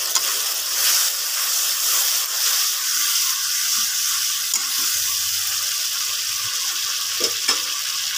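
Spiced onion-tomato masala frying in oil in a pan and sizzling steadily, a little water just added to it as it is cooked down (kosha).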